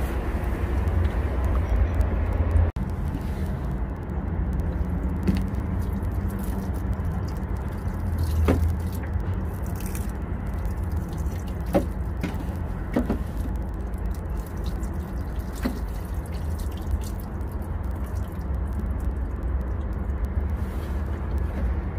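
Water pouring steadily from a plastic watering can's spout onto potting soil in a planter, with a few light ticks. A steady low rumble of city traffic runs underneath.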